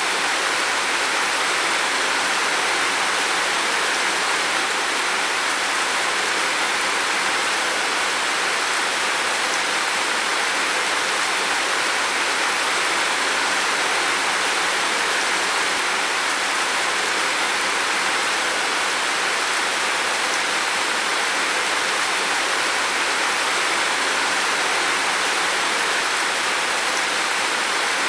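Heavy rain falling on a roof: a dense, steady hiss with no separate drops standing out.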